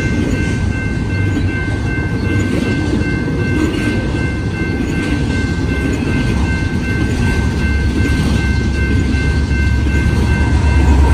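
Double-stack intermodal container train rolling through a grade crossing: a steady rumble and clatter of container well cars on the rails, with the crossing bell ringing steadily over it. Near the end a deeper engine rumble swells as the rear distributed-power locomotive, a Union Pacific SD70ACe diesel, draws close.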